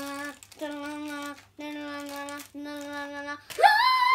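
A child sings four short held notes on one level pitch, then about three and a half seconds in breaks into a loud, high-pitched squeal.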